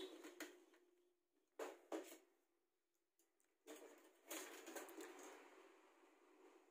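A few faint clicks and knocks of metal and plastic parts as a copier pickup unit is handled and worked on with a screwdriver during reassembly.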